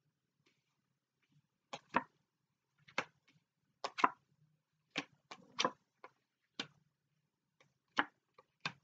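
Tarot cards being shuffled by hand: a string of sharp, irregular card snaps and taps, starting about two seconds in.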